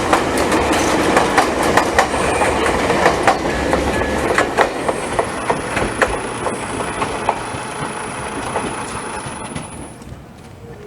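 Jomo Electric Railway electric train passing, its wheels clicking over the rail joints in a rapid irregular series. The running noise fades away near the end.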